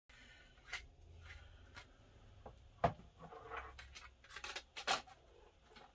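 Hard plastic parts being handled, rubbed and scraped, with scattered sharp clicks and knocks, as a homemade ABS dash kit is trimmed and test-fitted.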